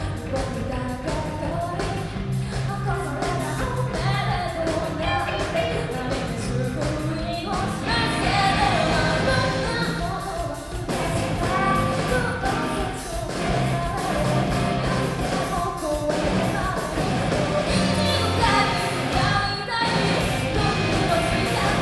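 A rock band playing a song with a lead vocal, drums driving a steady beat under guitars and bass.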